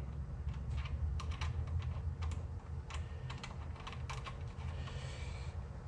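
Light, irregular metal clicks as a jam nut is spun by hand onto the threaded lower stud of a QA1 rear shock.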